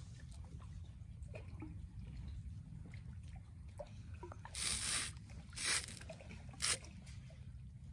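Small river waves lapping and dripping against the bank, with three louder splashing rushes about four and a half, five and a half and six and a half seconds in, over a steady low rumble.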